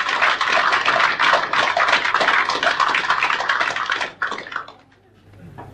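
Audience applauding in a small club, loud and then dying away about four seconds in, over a faint steady low hum.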